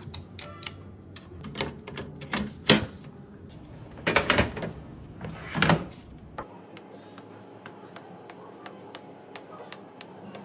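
Sharp clicks and taps of PC hardware being handled and fitted, with a few louder rustling knocks in the first half; then evenly spaced clicks about three a second.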